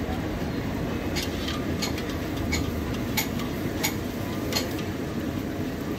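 A bhatura deep-frying in a kadhai of hot oil, with a metal slotted ladle clicking against the pan about six times, roughly every two-thirds of a second, over a steady low rumble.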